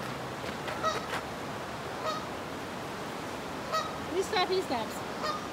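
Several short honking calls, coming singly and then in a quick cluster about four seconds in, over a steady background hiss.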